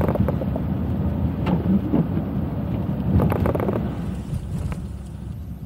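Car driving on a rain-wet road: a steady low rumble of tyre and road noise with a few brief crackles, easing off after about four seconds.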